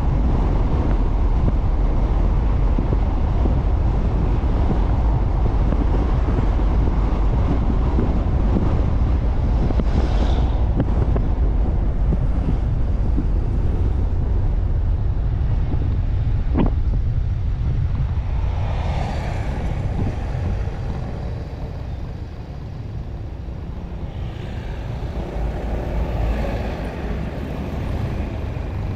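Road vehicle noise: a steady low rumble of driving, with wind on the microphone. Three times it swells briefly with higher-pitched noise, and there is a single sharp click about two-thirds through.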